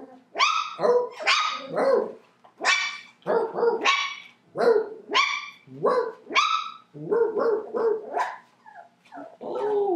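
Young puppies barking and yipping in a quick string of short barks, each rising then falling in pitch, about two a second, tapering off near the end.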